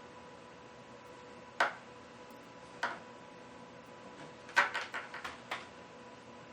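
Sharp clicks and taps of small tools and parts handled on a repair bench: one, then another about a second later, then a quick run of five or so. Under them runs a faint steady electrical hum.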